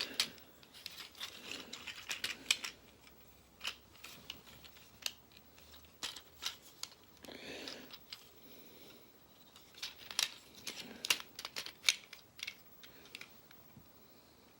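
Hard plastic transforming robot toy being handled: an irregular run of sharp clicks and snaps as its joints and parts are moved and pressed into place, with a brief rustle of handling.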